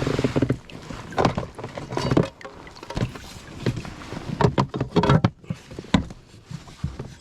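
Irregular knocks, bumps and water sounds from a fishing kayak as the angler moves and handles gear aboard it.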